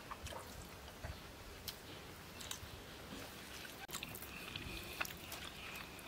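A person eating rice and curry by hand from a steel plate: soft chewing and the wet squish of fingers mixing the food, with scattered light clicks.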